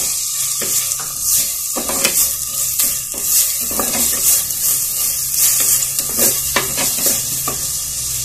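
Chopped onions sizzling in hot oil in an earthenware clay pot, stirred with a wooden spatula: irregular scraping strokes over a steady sizzle.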